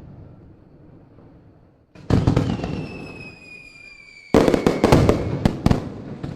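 Fireworks: a loud bang about two seconds in with high whistles gliding slowly downward, then from about four seconds in a quick run of sharp crackling pops.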